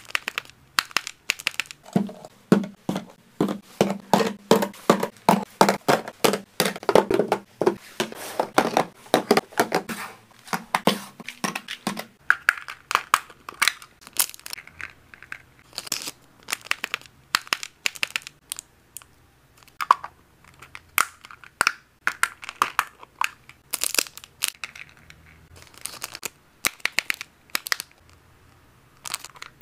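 Plastic snack packaging crinkling and rustling in the hands, with many quick sharp clicks and crackles, as packets of cat treats are handled. A steady low hum runs underneath for the first third or so.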